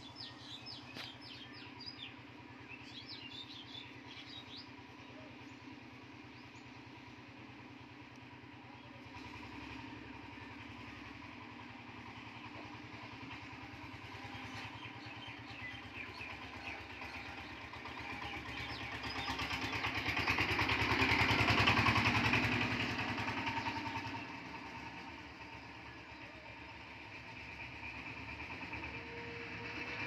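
A motor vehicle engine passing by, swelling to a peak about two-thirds of the way through, then fading away. Short high chirps in the first few seconds.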